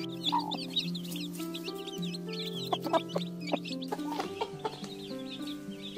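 Chickens clucking, a few short calls mostly in the middle, over soft background music of long held notes, with small birds chirping throughout.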